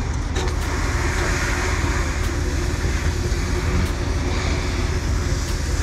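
Tractor-trailer car hauler on the move: steady engine rumble mixed with tyre and wind noise.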